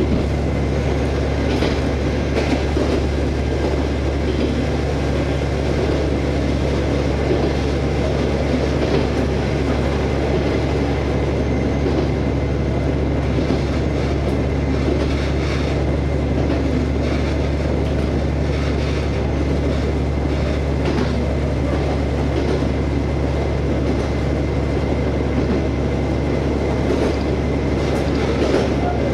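KiHa 47 diesel railcar running, heard from on board: a steady engine drone under the rumble of wheels on the rails, with occasional light clicks.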